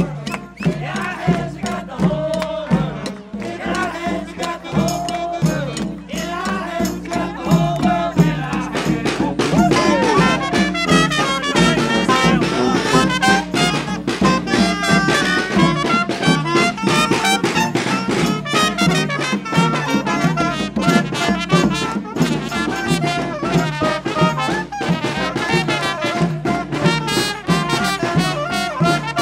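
Live street band playing upbeat, jazzy music: saxophone and other horns over a djembe hand drum keeping a steady beat. The music grows louder and fuller about nine seconds in.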